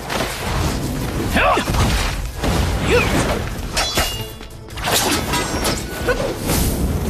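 Fantasy-fight sound effects layered over action music: whooshes, crackling magic blasts and impacts, with a brief lull just after four seconds in.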